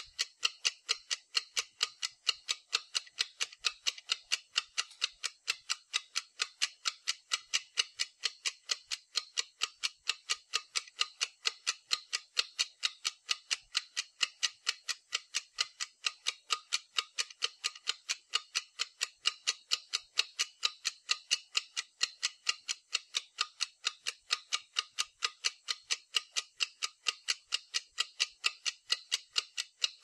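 Steady, even ticking: sharp clicks about three times a second, keeping the same pace without a break.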